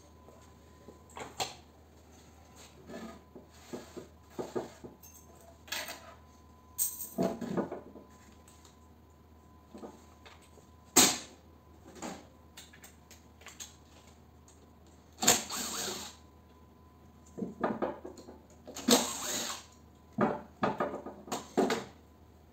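Electric-motor parts and hand tools being handled on a small workbench: scattered clanks and knocks of metal being picked up and set down, with one loud knock about eleven seconds in and a few longer scraping noises near the middle and end.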